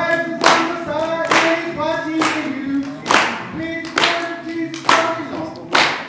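A group of people singing a song together, with hand claps on the beat about once a second; the claps are the loudest sound.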